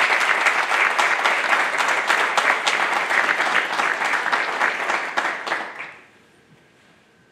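Audience applauding, many people clapping together, dying away about six seconds in.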